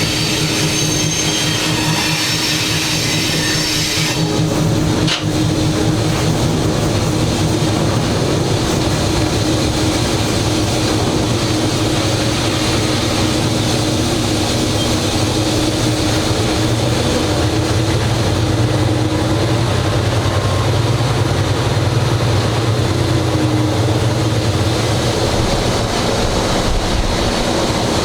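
Diesel engine of a GE 80-ton switcher locomotive running steadily, heard from inside its cab as it reverses. A high hiss over it for the first four seconds stops suddenly.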